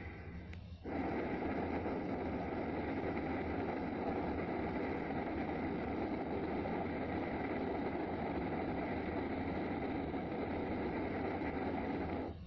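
A sound-effect clip of steady rushing noise that starts suddenly about a second in, holds even and unchanging, and cuts off abruptly near the end.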